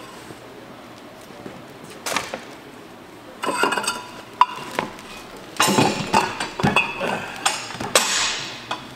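Heavy iron cylinder liners and the liner puller clanking and scraping as a pulled liner from a Caterpillar 1693 engine block is lifted out and set down with the others. A few single knocks at first, then a quick run of clanks near the end.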